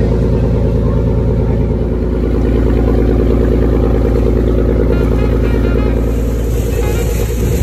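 Tour boat's engine running steadily, a loud low drone. About six seconds in, a hiss of rushing water and wind rises over it.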